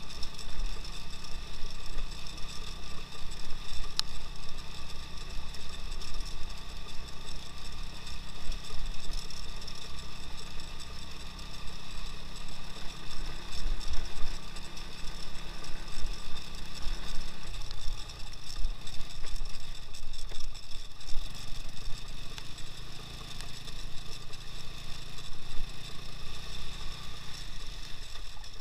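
Engine of a two-wheel-drive off-road motorcycle running steadily while riding, its note stepping down to a lower pitch about two-thirds of the way through.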